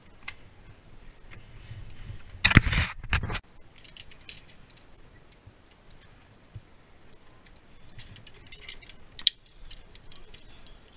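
Metal climbing hardware, carabiners and rope-access devices, clinking and clicking in scattered small ticks. About two and a half seconds in there is a louder rush of noise lasting about a second.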